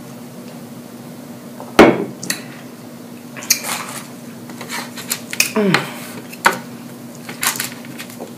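A glass bottle set down on the table with a knock about two seconds in, then scattered clinks and clicks of dishes and food being handled on a platter.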